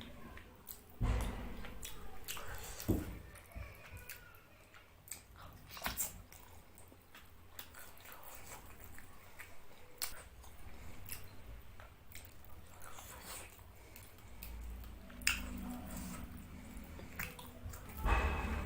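A person chewing fish curry and rice up close, with wet squishing sounds and scattered sharp clicks.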